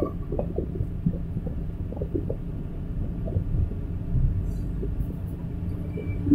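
Excavator diesel engine running steadily, heard as a low rumble from inside the cab, with faint scattered ticks and rattles and a slight swell in the rumble about four seconds in.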